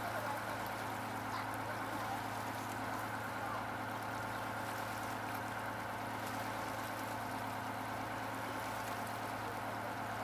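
Landing craft's engine running steadily under way, a constant low hum with no change in speed, heard on board.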